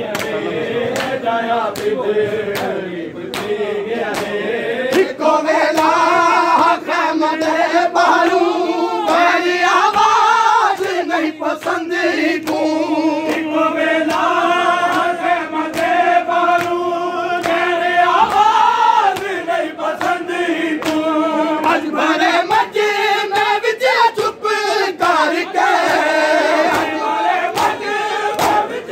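A group of men chanting a noha, a Shia lament, in a loud sustained melody, led by a reciter. Frequent sharp slaps of hands beating on chests (matam) run through the singing.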